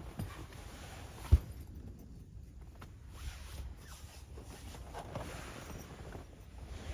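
Handling noises, with rustling and a zip-like scrape, over a steady low wind rumble on the microphone. A single sharp knock a little over a second in is the loudest sound.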